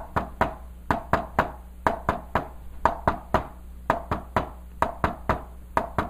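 Quick taps on a whiteboard in groups of three, about one group a second, the third tap of each group coming a little later than the second. The taps mimic the S1-S2-S3 rhythm of a third heart sound (ventricular gallop).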